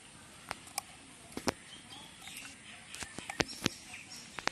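A few sharp, scattered clicks and light taps from handling a bamboo fishing rod and line, with faint bird chirps in the background.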